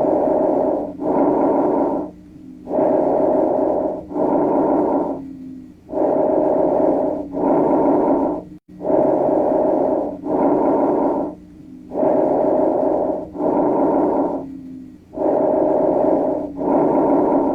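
Recorded human breath sounds, as heard in a chest auscultation example: six regular breaths about three seconds apart. Each breath is a one-second inhale followed at once by a one-second exhale, with a short pause before the next.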